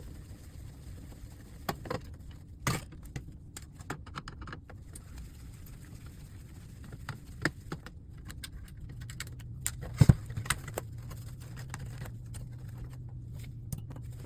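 Scattered clicks, taps and light metallic clatter of a monitor's metal and plastic parts being handled during a teardown, with a sharper knock about ten seconds in.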